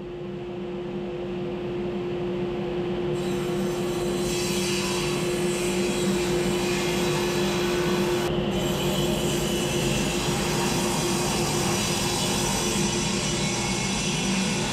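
Table saw running with a steady motor hum, its blade ripping along the edge of a rough-milled board from about three seconds in until near the end to true it straight.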